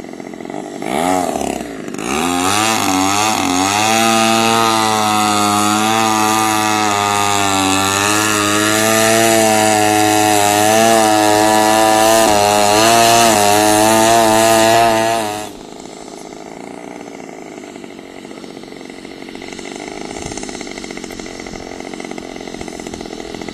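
Small engine of a radio-controlled model aircraft flying 3D aerobatics. A short swoop with falling pitch about a second in, then a loud, sustained run whose pitch wavers up and down. About fifteen seconds in it drops suddenly to a much quieter level.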